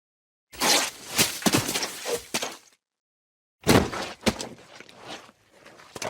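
Two separate cartoon gore sound effects with a gap of silence between them. Each is a quick run of hits and cracks: the first starts about half a second in and lasts about two seconds, the second starts around three and a half seconds in and is shorter.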